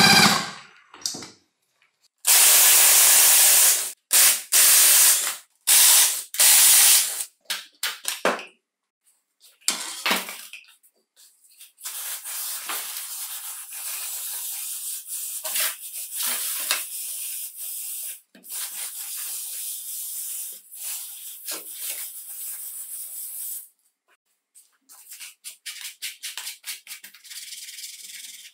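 Aerosol spray can with a straw nozzle hissing in several short loud bursts, then in one long, quieter spray lasting about ten seconds. Near the end there are light, scattered scuffing and rubbing sounds.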